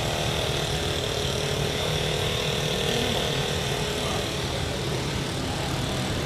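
Jet airliner engines running steadily: a high whine over a broad rumble.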